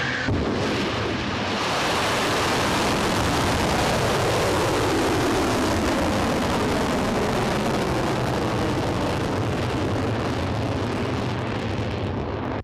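Ballistic missile launching: the rocket motor, lit just before, runs as a loud, steady rushing noise as the missile climbs away, with a sweep falling in pitch over the first several seconds.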